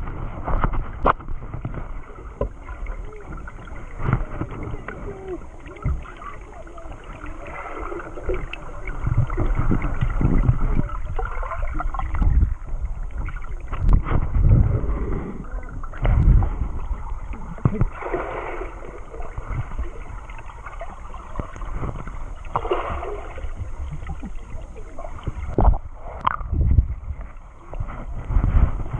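Muffled sloshing and rumbling of lake water picked up by a camera held underwater, with irregular swells and scattered sharp knocks and clicks.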